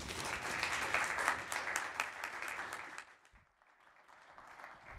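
Audience applauding, then dying away about three seconds in.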